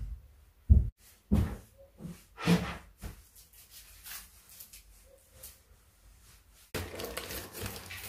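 Thumps, knocks and rustling of a person getting up and walking about a carpeted room, several sharp knocks in the first three seconds. About seven seconds in, a steady hiss of a lit gas stove burner takes over.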